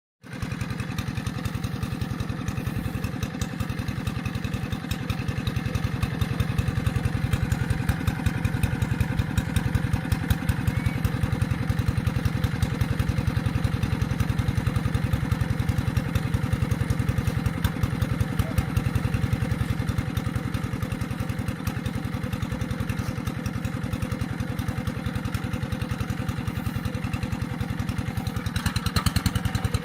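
Paddy-field tractor engine running steadily with an even, rapid beat.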